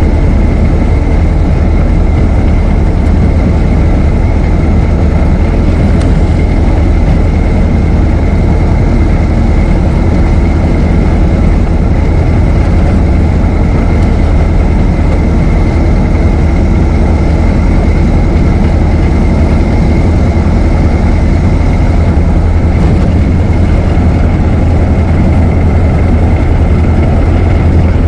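Ford Model T's four-cylinder engine running steadily as the car drives, a deep even rumble with a thin, constant high tone over it.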